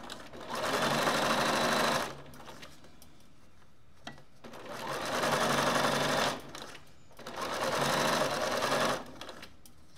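Computerized sewing machine top-stitching along a zipper edge, running in three stop-start bursts of about two seconds each with short pauses between.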